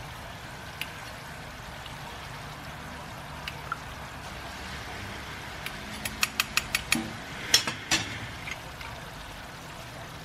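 Coconut oil and browned coconut curds simmering in a wok, with a steady low sizzle, while oil is scooped out with a ceramic mug and a mesh strainer. The utensils scrape and clink against the wok: a few light taps, then a quick run of clinks about six seconds in and two louder knocks just after.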